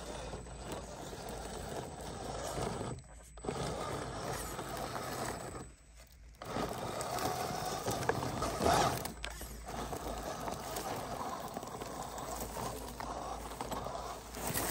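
ZP 1007 RC rock crawler's electric motor and gears running as its tyres crawl and scrape over loose shale rock. The sound cuts out briefly twice.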